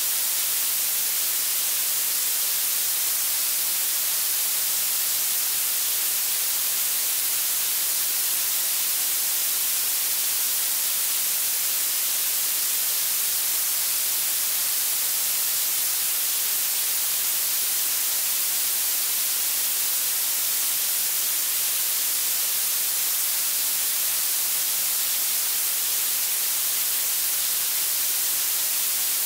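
Blue noise: a steady, unchanging synthetic hiss whose energy climbs toward the highest frequencies, so it sounds thin and bright with almost no low end.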